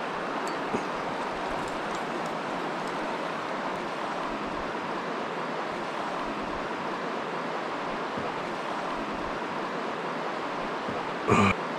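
Running river water rushing steadily past a drifting kayak. Near the end comes one short, loud knock.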